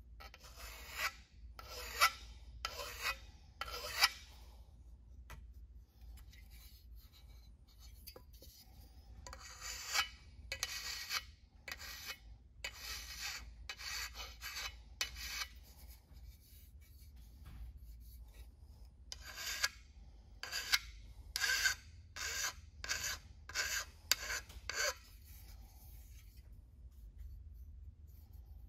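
Hand file being drawn along the edges of aluminium sheet-metal parts to deburr them and smooth out nicks: a series of separate rasping strokes, about one a second, in three runs with short pauses between.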